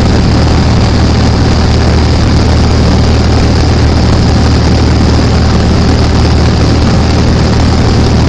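A loud, steady engine running with a constant low hum and no change in speed.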